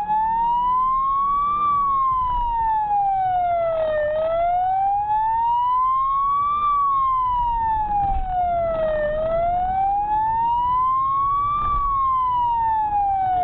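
Police car siren wailing, its pitch slowly rising and falling about every five seconds, nearly three full cycles, over the pursuing patrol car's engine and road noise.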